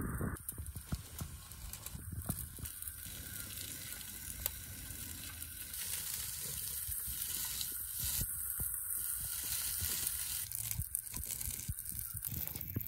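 Chicken wings sizzling on a foil-lined grill pan over a portable gas stove, a steady hiss with scattered small pops.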